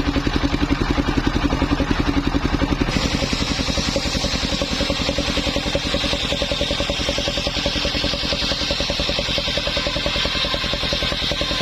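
Engine of a homemade mobile circular-saw rig running steadily with a rapid, even pulsing beat. About three seconds in the sound changes and a steady higher whine comes in over the engine.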